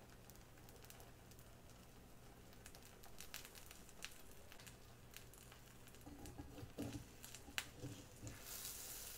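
Faint omelette-cooking sounds: a few soft ticks and rustles as shredded mozzarella is scattered over the eggs in the frying pan, with a light sizzle rising near the end.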